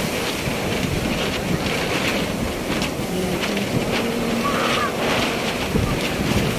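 Surf breaking and washing up the beach under heavy wind buffeting on the microphone, a steady rumbling rush with no pauses.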